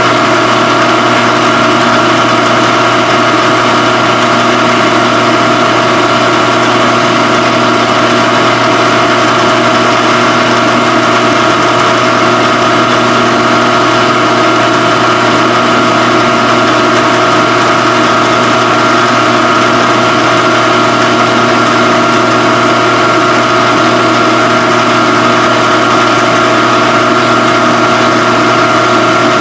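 Phase-O-Matic CNC phase converter running with a steady, unchanging hum, powering a Bridgeport EZ-Trak CNC vertical mill.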